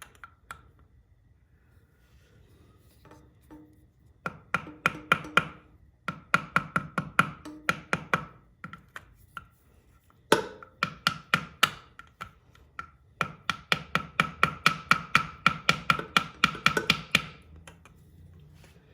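Quick runs of light taps, each with a short ring, driving the new front crankshaft radial seal of a BMW R1200C boxer engine into the engine case. There are four bursts of several taps a second, the last and longest near the end.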